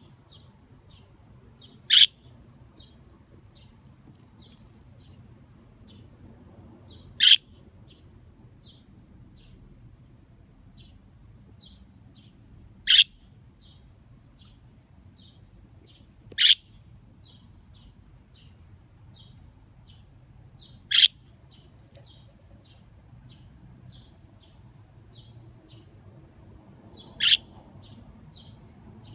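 A budgerigar giving six loud, short, sharp calls a few seconds apart, calling back to a wild bird whose faint chirps repeat about twice a second throughout.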